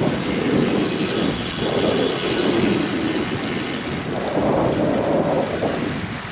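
Wind gusts blowing over the microphone, a loud low rushing rumble that swells and eases about three times.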